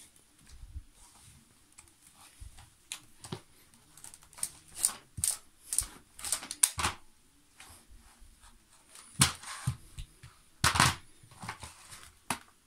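Handling noise from a Zelmer Cobra 2000 Plus vacuum cleaner's hose, telescopic metal wand and floor nozzle as they are fitted together, with the motor off. Scattered clicks and knocks, and short scraping rasps, the loudest about nine and eleven seconds in.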